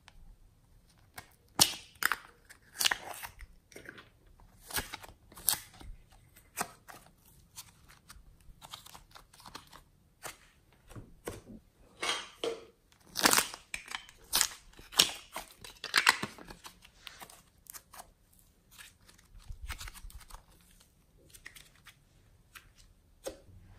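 Small plastic slime containers handled and glossy slime pulled and dropped into a glass dish: irregular sharp clicks and crackles with sticky tearing sounds, a few louder cracks near the middle.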